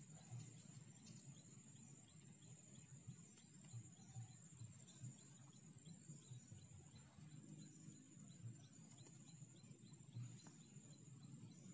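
Near silence: faint outdoor ambience with a thin, steady high-pitched whine throughout and a few soft, faint knocks.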